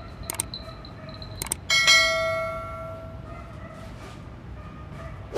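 Mouse clicks, two quick pairs, then a bright bell ding that rings out and fades over about a second and a half: the sound effect of a YouTube subscribe-button and notification-bell animation.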